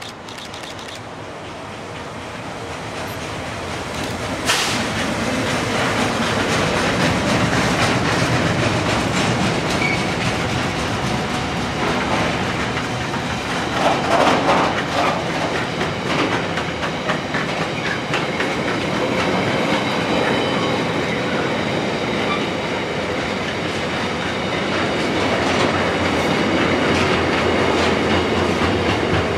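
Freightliner Class 70 diesel-electric locomotive, powered by a GE PowerHaul V16 engine, approaching and passing at speed, growing louder over the first few seconds. A long container freight train on flat wagons follows, rolling past with a steady clickety-clack of wheels on rails. A sharp knock comes about four and a half seconds in, and there is a brief louder rattle at about fourteen seconds.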